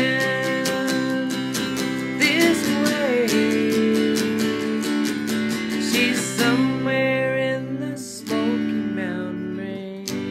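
Taylor electric guitar strummed and picked in a slow country ballad, with sustained chords that change every couple of seconds. There is a brief drop in level just before a fresh chord about eight seconds in.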